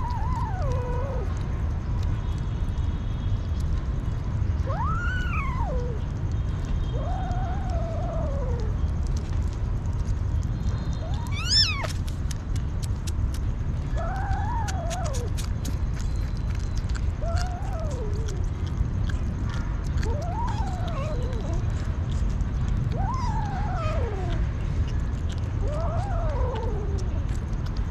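Hungry kittens meowing repeatedly as they feed, short rise-and-fall meows about every three seconds, with one higher, louder cry near the middle. A steady low rumble runs underneath.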